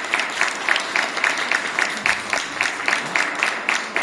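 Audience applauding, with individual hand claps standing out in a dense, even patter.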